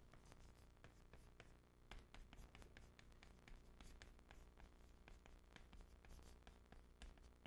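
Chalk writing on a chalkboard: faint, irregular taps and scratches as Chinese characters are written stroke by stroke.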